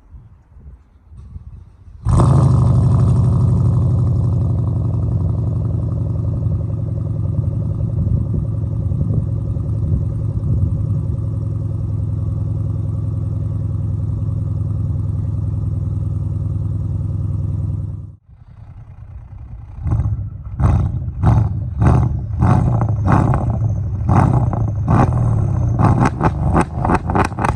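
Mercedes M278 4.7-litre twin-turbo V8 with downpipes and a resonator delete: the exhaust fires up about two seconds in and holds a steady, loud cold-start idle. It cuts off sharply about two-thirds of the way through, and after a short lull comes a string of quick throttle blips that follow faster and faster toward the end.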